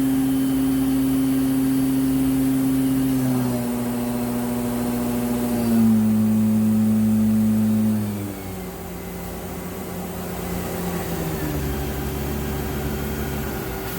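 1999 Mazak VTC-16A CNC vertical mill running with a steady machine whine that steps down in pitch several times, as if the spindle is being run at successively lower speeds.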